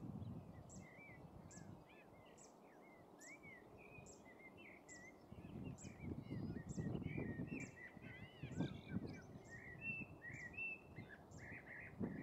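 Small songbirds chirping and twittering in quick, overlapping calls, with a thin high note repeated steadily about every half second, over a low rumbling noise that swells a few times.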